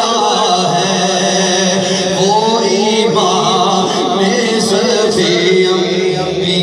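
Male voice singing a naat, an Urdu devotional poem in praise of the Prophet, in long gliding melismatic phrases over a steady low drone, amplified through a microphone.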